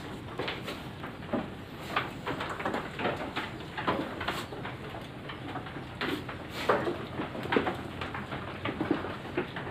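Goats feeding at a trough behind wooden rails: irregular wooden knocks and clatter, about once or twice a second, over low rustling.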